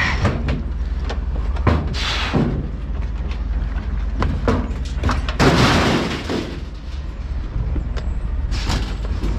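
Scrap metal being thrown down onto a pile: a series of clanks and crashes, the longest about five and a half seconds in, over a steady low rumble.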